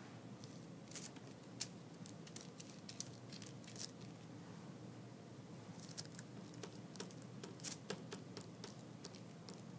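Paintbrush dabbing and stroking Mod Podge onto wet tissue paper over a small wooden cutout: faint, irregular light ticks and crinkly scratches in loose clusters, over a faint steady hum.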